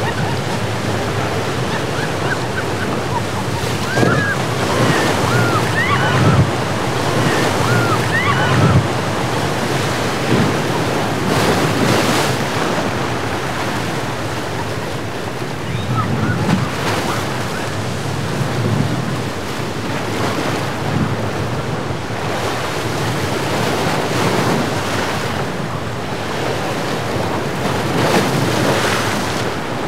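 Rough surf breaking and hissing in an ocean inlet, with wind buffeting the microphone and louder surges as waves crash around the boats crossing it. A few short high-pitched cries come about four to nine seconds in.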